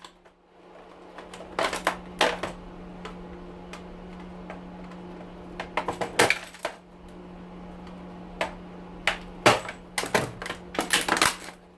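Plastic clips of an air cleaner's housing being pried and popped with a screwdriver: scattered sharp plastic clicks and snaps in several clusters, over a steady low hum.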